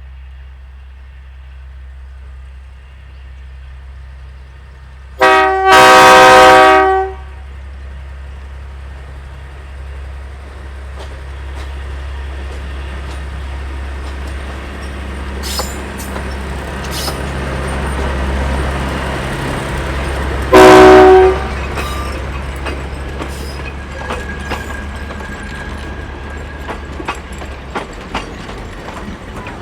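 Diesel locomotive sounding a multi-note horn twice: a long blast about five seconds in and a shorter one about twenty seconds in. Under the horn is the steady low drone of its engine, which grows louder as the train approaches, and later come scattered clicks of wheels over the rail.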